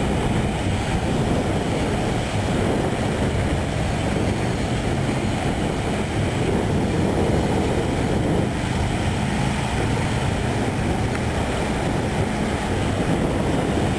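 Steady low rumbling of wind buffeting the camera's microphone.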